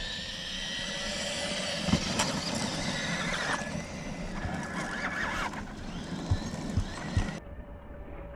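Electric radio-controlled truck driving, its motor whining in short rising and falling bursts over a steady hiss, with a few soft knocks near the end.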